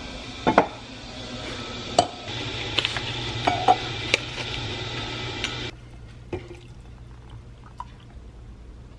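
Kitchen handling sounds: a glass mug knocked and clinked as it is taken from a cabinet and set on a stone counter, and the rustle of a tea bag packet being opened. After a sudden drop in level, hot water is poured quietly from a stainless stovetop kettle into the glass mug.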